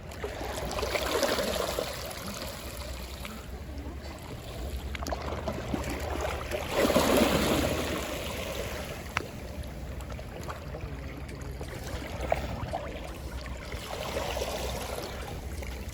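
Sea water washing in and out, a rushing sound that swells and fades three times over a steady low rumble.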